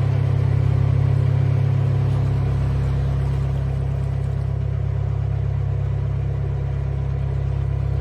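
Narrowboat's diesel engine running steadily under way, a deep, even low-pitched drone.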